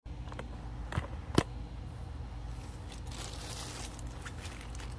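Two short, sharp clicks about a second in, the second louder, then a thin plastic shopping bag rustling and crinkling as it is handled, over a steady low background hum.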